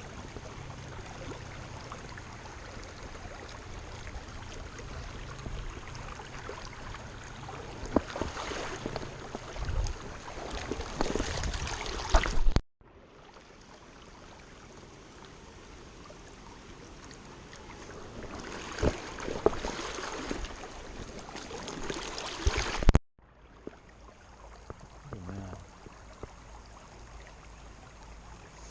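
Steady rush of river water, with louder bursts of splashing and knocking twice, each ending in an abrupt cut.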